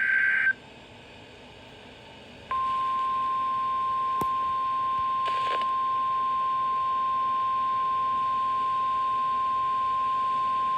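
The tail of an EAS digital header burst, a warbling data screech, cuts off about half a second in. After a two-second gap, the single steady 1050-hertz NOAA Weather Radio warning alarm tone starts about two and a half seconds in and holds.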